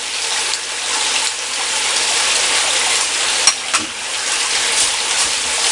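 Steady rush of water flowing through a running sluice box, with one sharp click about three and a half seconds in.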